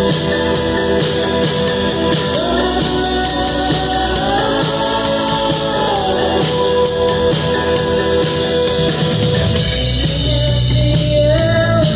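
Live dream-pop band music: a woman's voice sings long held, gently gliding notes over sustained keyboard chords and a steady beat.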